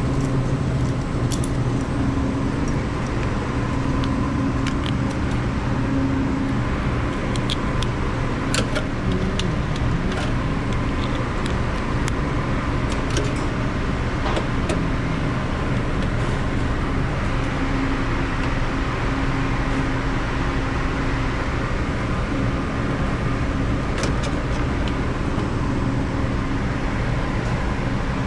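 Steady drone of commercial kitchen machinery, a constant hum with a few held tones. Occasional small sharp metallic clicks and clinks are heard over it.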